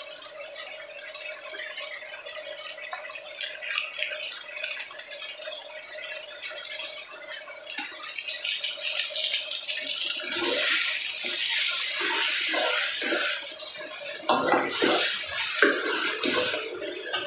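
Pork in shrimp paste sizzling in a pan while a spatula scrapes and clatters against it in stirring, the stirring getting louder and busier from about eight seconds in. A faint steady hum runs underneath for the first ten seconds or so.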